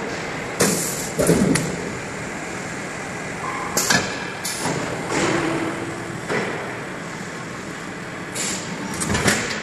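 Sheet-metal uncoiling, flattening and cut-to-length line running: a steady machine noise with several sharp metallic clanks and knocks at irregular intervals.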